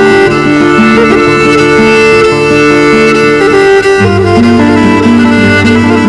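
Background music: a held melody over sustained low notes, the bass moving down to a lower note about four seconds in.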